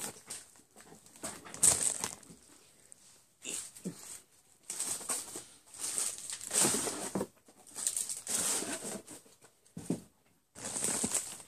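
Cardboard shipping box being opened and handled, its flaps and packing rustling and scraping in irregular bursts, with a sharp bump about two seconds in.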